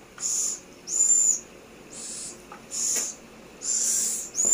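Scops owl chicks giving a string of short, high hissing calls, about six in all, some with a thin whistle in them.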